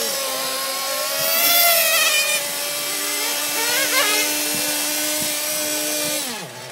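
Several 1/10-scale on-road RC racing cars running laps, their motors whining and rising and falling in pitch as they accelerate and pass. The sound is loudest about one and a half seconds in and drops off sharply near the end.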